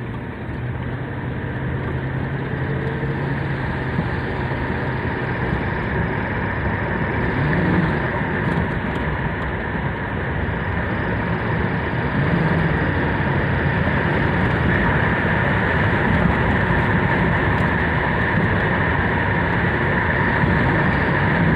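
2008 Ford Crown Victoria running with a steady whirring whine over its engine and road noise, growing slightly louder. The owner has not yet traced its source.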